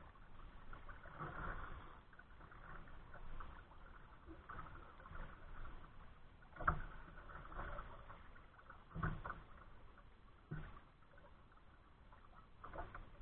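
Faint splashing of kayak paddle strokes and water lapping at the hull, with a few short, louder strokes in the second half.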